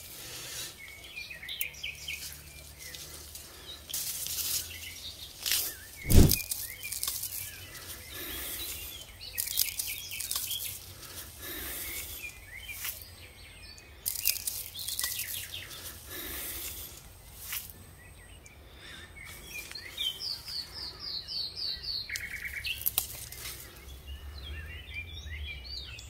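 Small birds chirping and singing, with the dry rustle of tomato plant leaves and stems being handled as tomatoes are picked by hand. A single sharp knock about six seconds in is the loudest moment.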